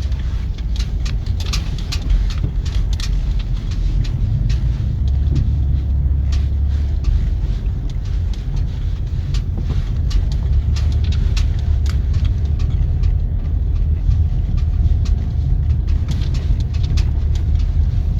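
Minivan driving over a rough, icy trail: a steady low rumble of engine and tyres, with frequent sharp clicks and rattles.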